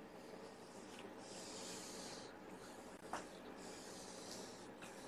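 Faint rustling and scuffing as a kitten grapples with and kicks a fabric kicker toy, with one small click about three seconds in.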